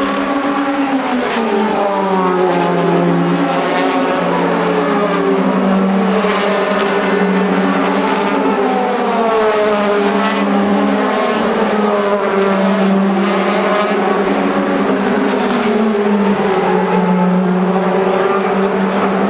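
DTM touring cars' 4.0-litre V8 engines as several cars run through a corner one after another. The engine notes overlap and keep falling and rising in pitch as the cars slow and then accelerate again.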